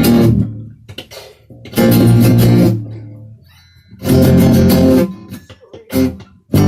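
Guitar chords strummed loudly, hit about every two seconds, each chord ringing out and fading before the next.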